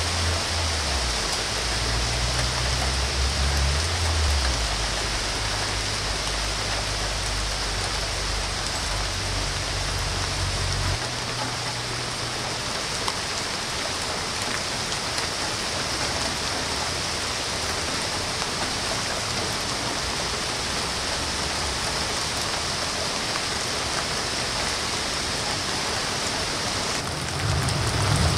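Steady rain of a sudden shower falling on dense leafy shrubs and trees, an even hiss of many drops. A low rumble sits under it for roughly the first third and stops about eleven seconds in.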